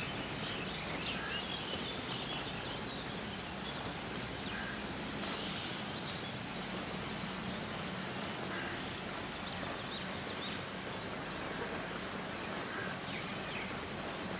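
Outdoor background noise, a steady hiss, with scattered short faint bird chirps throughout.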